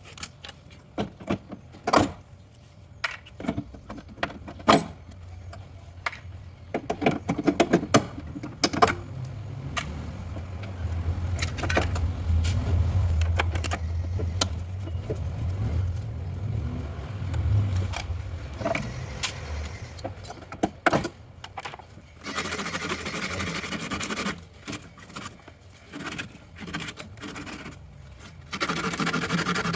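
Tools and metal parts clinking, knocking and scraping as a refrigerator compressor is taken out, with a low steady hum through the middle and two stretches of hissing noise near the end.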